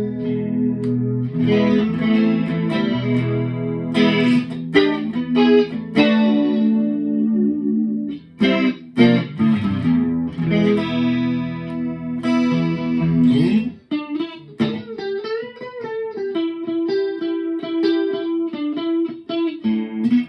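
Electric guitar played through a TC Electronic 3rd Dimension chorus pedal with all four chorus buttons engaged. Strummed, ringing chords give way about fourteen seconds in to a single-note line with bent notes.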